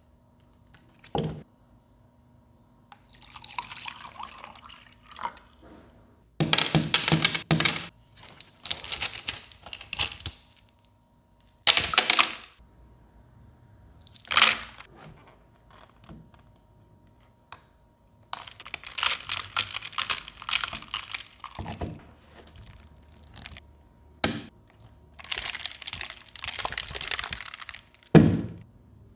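Handling sounds while unboxing a mini humidifier fan: irregular rustling and scraping of packaging and plastic parts, with several sharp knocks and thunks.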